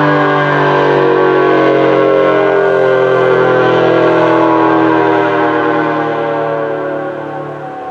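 ASC T-135AC/RM-135 outdoor warning siren sounding during a test: a loud, steady multi-toned blare, fading over the last couple of seconds.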